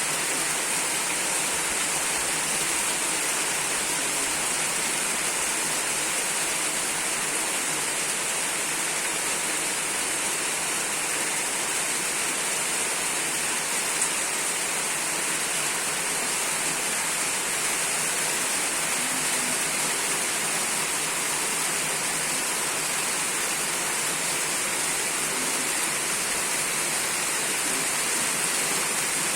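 Heavy rain falling in a steady downpour, an even, unbroken hiss. One brief tick stands out about halfway through.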